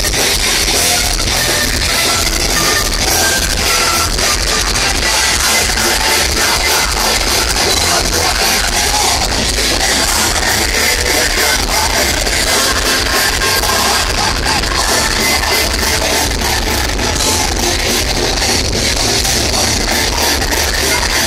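Live heavy metal band playing loud, with guitars and drums and some singing, recorded from within the crowd.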